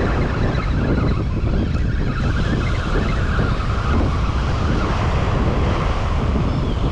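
Steady rush of wind buffeting the microphone, mixed with surf washing onto the beach.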